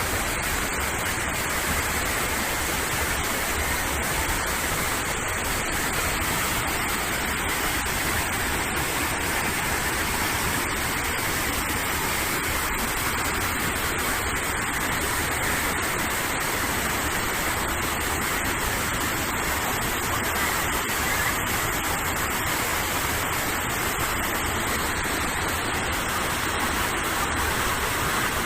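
Waterfall pouring into its pool: a steady, unbroken rushing of falling water.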